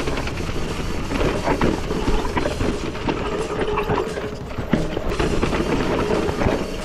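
Mountain bike being ridden on a dirt trail: tyres on dirt with the bike clicking and rattling in quick irregular knocks over a steady rush of noise.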